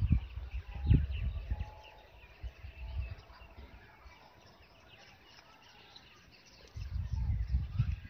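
Birds chirping in the background, with loud low rumbling noise on the microphone near the start and again from about seven seconds in.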